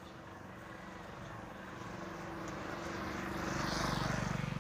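A motor vehicle's engine approaching and passing, growing steadily louder to a peak about four seconds in, then starting to fade.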